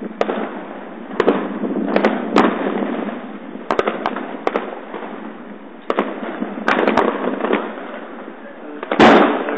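New Year's fireworks and firecrackers going off in the street: sharp single bangs at irregular intervals over a constant crackling background, with a louder, longer burst of bangs near the end.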